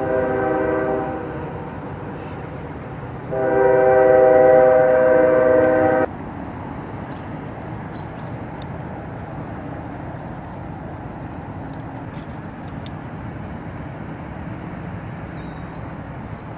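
A multi-note horn sounds two blasts of a steady chord: a short one that fades after about a second, then, about three seconds in, a longer and louder one that stops suddenly. A steady low outdoor rumble follows.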